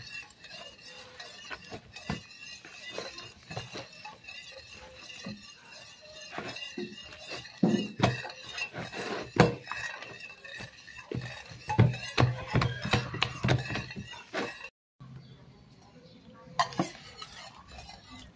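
Hands kneading wet, sticky bread dough in a plastic tub: irregular squelches and slaps of the dough with knocks against the tub, loudest in the middle.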